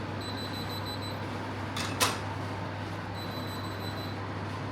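Cooker's digital timer alarm beeping in a thin high-pitched tone, for about a second near the start and again from about three seconds in. A steady low hum runs underneath, and a pan knocks once about two seconds in.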